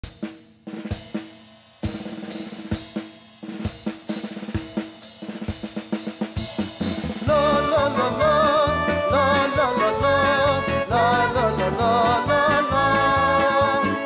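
Live band playing an instrumental intro: spaced drum-kit hits with short accompanying chords at first, then about seven seconds in the full band comes in, with drums, bass and a melody line over them.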